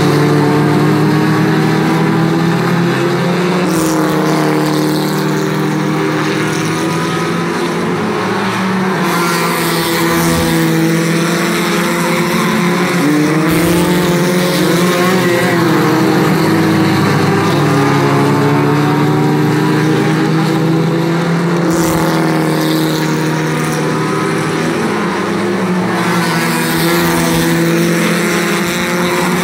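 A pack of scrambler-class stock cars racing, many engines running hard together in a steady drone. The pitch bends up and down as the cars go through the turn.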